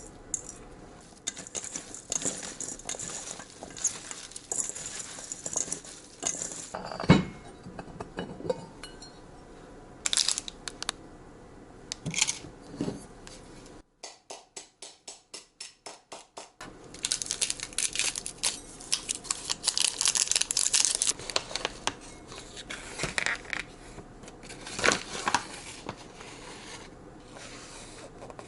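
Kitchen work: scattered clinks and knocks of utensils and dishes, with a busier stretch of clatter past the middle.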